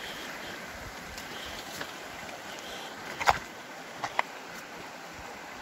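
Shallow creek water running in a steady rush. A sharp clack of loose rocks underfoot comes about three seconds in, and two lighter clacks follow about a second later.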